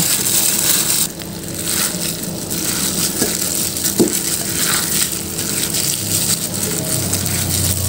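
Plastic-gloved hand kneading and squeezing mashed steamed tofu with chopped vegetables in a glass bowl: a steady wet squishing and crackling of glove and food, with a couple of light knocks in the middle.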